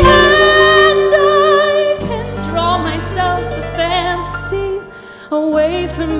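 A woman's singing voice with a live band: she holds a long note with vibrato, then sings on in shorter phrases over sustained accompaniment, with a brief lull about five seconds in.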